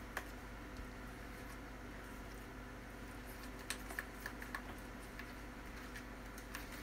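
A utensil stirring a thick, creamy dressing in a plastic mixing bowl: scattered light clicks and taps against the bowl, a few in quick succession about halfway through, over a faint steady hum.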